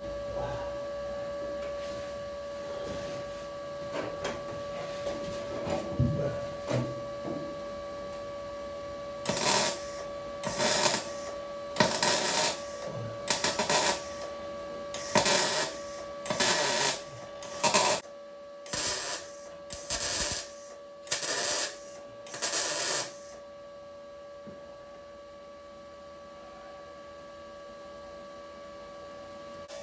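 MIG welder laying short stitch welds on steel car body panels: about a dozen brief crackling bursts in a row, with a steady hum throughout and a few light knocks before the welding starts.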